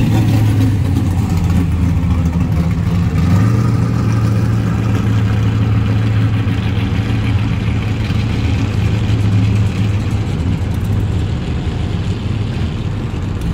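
Engine of a first-generation Chevrolet Camaro drag car running at low speed as it rolls past and away: a steady low rumble that fades a little near the end.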